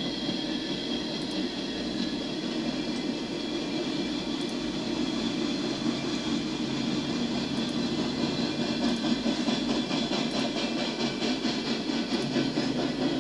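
Freight train of coal hopper cars rolling past: a steady rumble of wheels on rail, with a fast rhythmic clickety-clack that becomes more noticeable in the second half. It is heard through the audio of a railcam live stream played on a computer.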